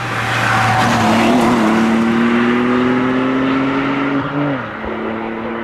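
Ford Fiesta rally car passing close at full throttle, its engine note climbing steadily through a gear. About four and a half seconds in, the pitch drops sharply as it shifts up, then holds steady as the car pulls away.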